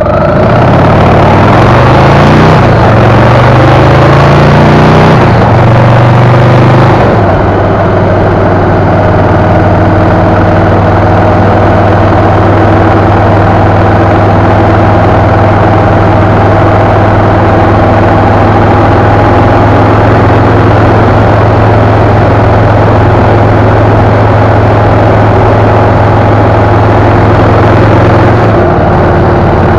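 Motorcycle engine accelerating hard through three gears, its pitch climbing and dropping back at each shift about every two and a half seconds, then running steadily at cruising speed under constant wind rush. The engine note shifts slightly near the end.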